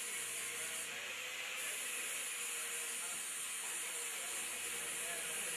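Steady hiss with a faint steady hum beneath it, unchanging in level.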